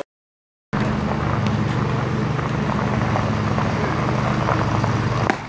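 A steady engine drone with an even low hum, starting after a moment of silence and ending with a sharp click near the end.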